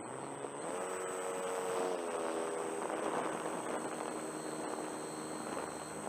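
Electric RC Cessna 182's motor and propeller running, the pitch rising about half a second in and easing slightly at about two seconds, over a rush of air noise and a steady high whine.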